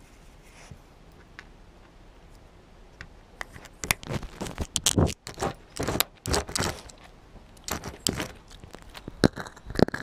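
A small dog grabbing a GoPro camera in her mouth and dragging it across the floor. Close, irregular knocks, scrapes and rattles of the camera being handled start about three and a half seconds in and go on to the end.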